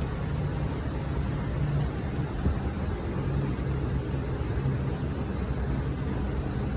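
A car in motion, with a steady rumble of road and running noise.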